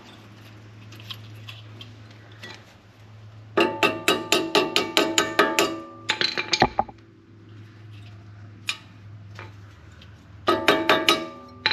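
Quick runs of ringing metal taps, about five a second, twice: a new brake pad clip being tapped down into place on the caliper bracket. A steady low hum runs underneath.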